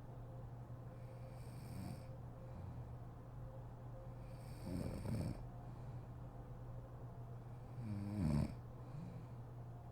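A sleeping woman snoring: three low snores about three seconds apart, the last one the loudest, over a steady low hum.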